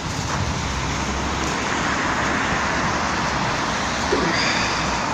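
Steady hiss and rumble of city traffic on the streets below, swelling a little about two seconds in.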